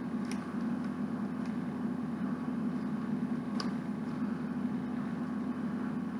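A steady low background hum, with two faint sharp clicks of small plastic Lego bricks being pressed together by hand, once just after the start and again about three and a half seconds in.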